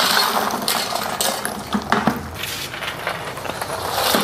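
Freeze-dried saltwater taffy pieces sliding off a metal tray and tumbling into a plastic 5-gallon bucket: a continuous light, dry rattle with a few sharper clicks.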